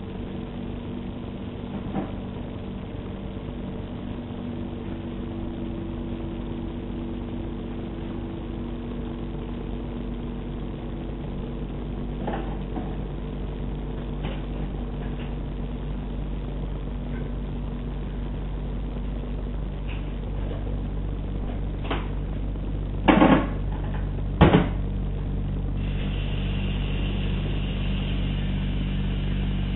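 An engine running steadily with a low hum, heard from indoors through a glass door, growing slowly louder and picking up a higher rushing noise near the end. Two loud knocks a little over a second apart come about three-quarters of the way through.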